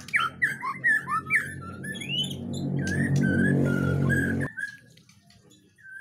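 Caged white-rumped shamas (murai batu) singing: quick varied whistles and chattering notes, then longer held whistles, over a low droning hum that grows louder. Everything cuts off abruptly about four and a half seconds in.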